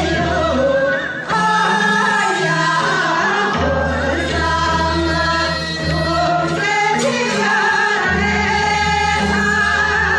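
A voice singing with instrumental accompaniment over a sustained bass line.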